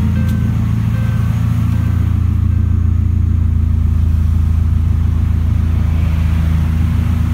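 Mazda 323 Lantis engine idling steadily, running again now that its no-start fault has been fixed.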